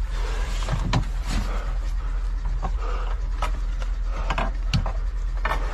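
Gear being handled and shifted inside an armored vehicle's crew compartment: rustling, with scattered knocks and clicks and a busier clatter near the end, over a steady low hum.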